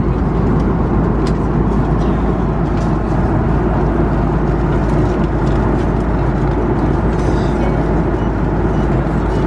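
Steady airliner cabin noise in flight, the engine and airflow noise heard inside an Airbus A330-300's economy cabin, with a few faint clicks.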